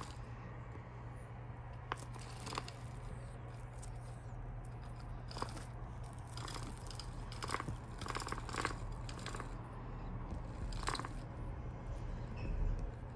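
Kittens playing: irregular short scratchy rustles and taps, one every second or so, over a steady low hum.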